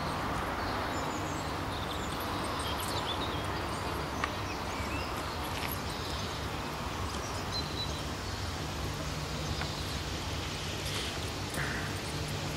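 Royal Scot class steam locomotive 46115 Scots Guardsman approaching tender-first in the distance with its train: a steady low rumble. Small birds chirp now and then.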